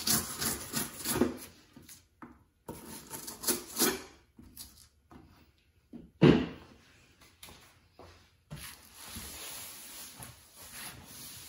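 Fiberglass duct board being cut with a knife, the blade rasping through the board and rubbing on the plywood underneath, then the board and offcut being handled, with one sharp knock a little after halfway.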